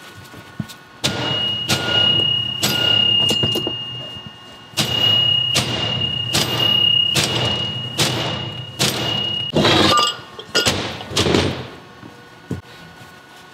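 Repeated hard strikes on steel differential parts during pinion installation in a third-member housing, about a dozen blows roughly a second apart, each leaving a short high metallic ring. There is a brief pause partway through, and the blows stop shortly before the end.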